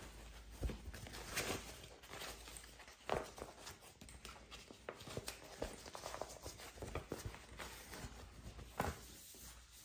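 Fabric rustling and crinkling as a quilted cotton pouch with a white lining is pulled right side out by hand, with a few sharp taps on the table, the clearest about three seconds in and near the end.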